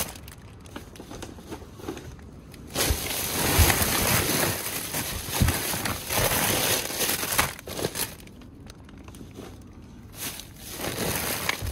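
Plastic bags and bagged-salad packaging rustling and crinkling as gloved hands rummage through them in a plastic bin. The rustling is loudest from about three seconds in until past the middle, and softer before and after.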